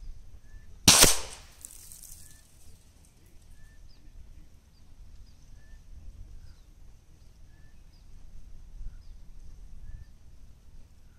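A single sharp shot from a Samyang Dragon Claw .50-calibre big-bore air rifle, heard from down-range at the target, about a second in, with a short ringing tail; the slug punches a new hole in the paper target. A faint chirp repeats about once a second in the background.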